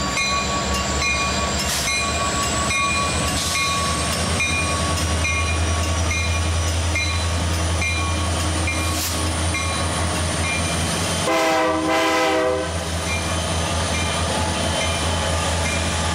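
Union Pacific freight train's diesel locomotives passing close by, a steady low engine rumble, with a single train horn blast of a little over a second about eleven seconds in.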